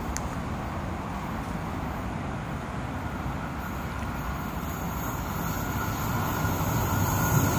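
Steady outdoor rumble of distant traffic, with a metro train approaching along the cutting: the noise grows louder over the last couple of seconds, with a faint high whine above it. Two brief clicks right at the start.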